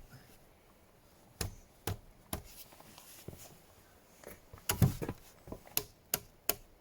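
A string of sharp, irregular wooden knocks and taps, as of wooden pegs and poles being knocked and handled, with the loudest cluster just before five seconds in.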